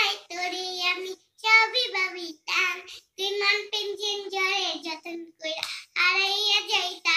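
A young girl singing unaccompanied, in short phrases with brief pauses between them.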